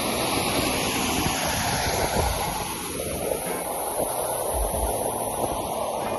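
Wind buffeting the microphone on an open fell: a steady rushing noise with a few low rumbling gusts.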